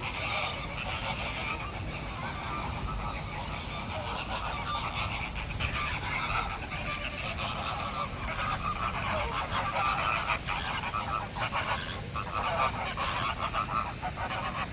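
A flock of waterbirds calling with many overlapping goose-like honks, busy and continuous.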